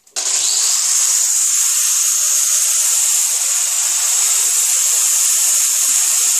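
Angle grinder with a polishing disc running against a steel shotgun barrel that turns in a metal lathe, fine-polishing the barrel: a loud, steady, high rushing sound. It comes up to speed in the first half second.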